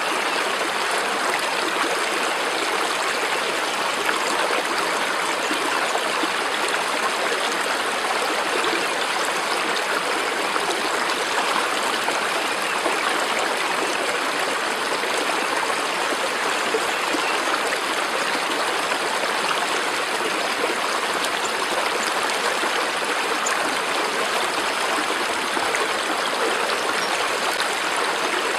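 Running stream, a steady even rush of water with no breaks or changes.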